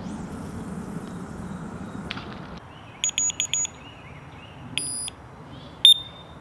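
Electronic carp-fishing bite alarms on a rod pod beeping as the lines are set: a quick run of several short high beeps about halfway through, then one longer beep and a final short beep near the end.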